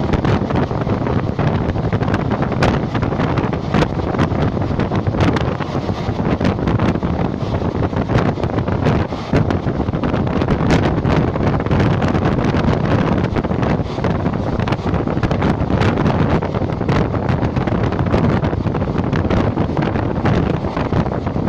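Passenger train running at speed, heard from on board: a steady, loud rumble of the moving train with wind buffeting the microphone and frequent sharp clicks throughout.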